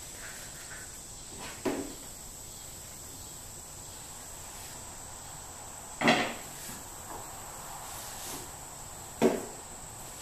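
Objects being handled and set down on a tabletop during an unboxing: three short knocks, the loudest about six seconds in, over a steady faint high-pitched whine.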